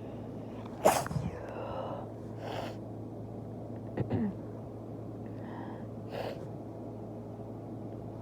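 A person sneezes once, sharply and loudly, about a second in, followed by breathing. A shorter vocal burst with a falling pitch comes about four seconds in, and there are short breaths near three and six seconds. A steady low hum runs underneath.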